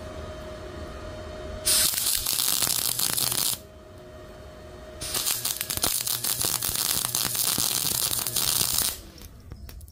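MIG welder arc crackling on thick steel plate in two runs, about two seconds and then about four seconds, with a steady hum between them. The second run cuts off suddenly near the end when the circuit breaker trips under the welder's 130-amp setting.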